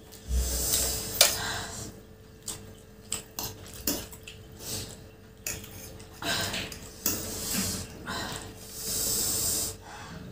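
Two people eating noodles with forks from plastic plates: short hissy slurps of noodles and the clicks and scrapes of forks against the plates, coming in irregular bursts.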